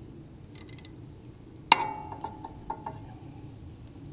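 A metal hand tool clinking against the engine's valve gear during valve-clearance adjustment. A few light ticks, then one sharp ringing clink about a second and a half in, followed by a couple of fainter ticks.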